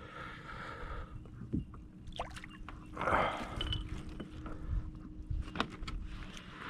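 Water sloshing and splashing against a kayak, with a louder swell of splashing about three seconds in and scattered sharp clicks and knocks.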